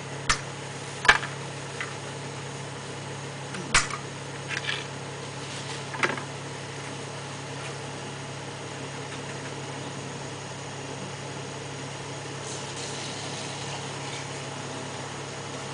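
Machinery running with a steady low hum. About four sharp knocks from the work at the open septic tank stand out in the first six seconds, the loudest about a second in.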